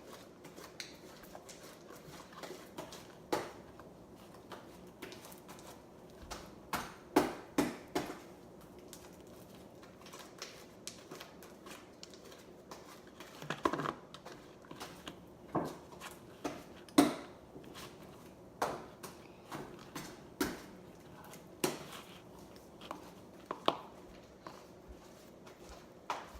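Sticky homemade slime with shaving cream being mixed and squished in its container: irregular short squelches and clicks, roughly one every second or two, with a few louder ones in the second half.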